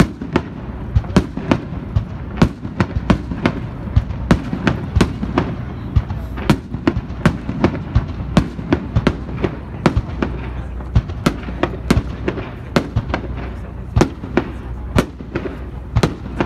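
Aerial fireworks shells bursting in quick succession: sharp bangs and crackles, several a second, over a steady low rumble.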